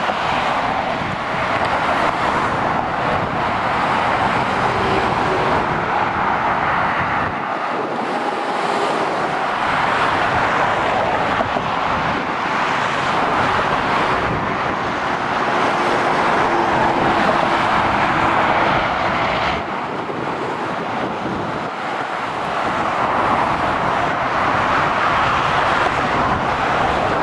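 Steady motorway traffic noise: tyres and engines of lorries, vans and cars running past below, with a short lull about two-thirds of the way through.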